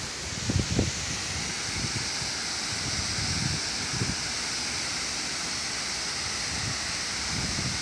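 Steady rush and hiss of water from a large monumental fountain's cascades and nearby lawn sprinklers, with wind buffeting the microphone about half a second in and now and then after.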